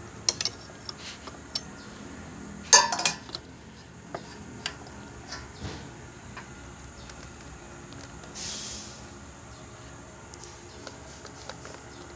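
Small metal parts and hand tools clicking and clinking during reassembly of a high-speed sewing machine's clutch motor, with a quick cluster of louder metallic clinks about three seconds in and a short scraping rustle about eight seconds in.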